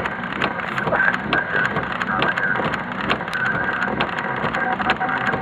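Heavy rain falling, with many irregular sharp taps of drops striking close by over a steady wash of rain.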